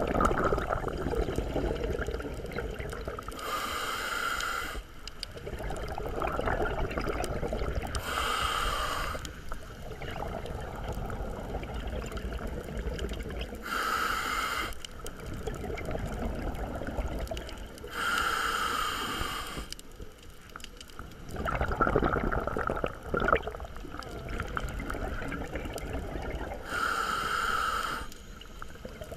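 A scuba diver breathing through a regulator underwater. A hissing draw of about a second comes every four to five seconds, alternating with longer, bubbly gurgling exhalations.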